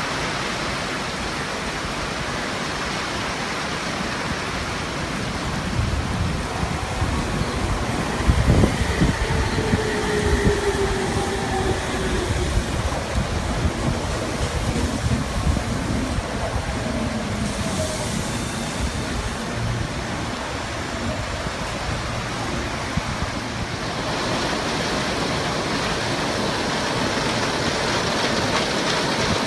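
Tobu Tojo Line electric train running, a steady rumble of wheels and rails with a cluster of clattering knocks about eight seconds in. A faint falling whine comes twice.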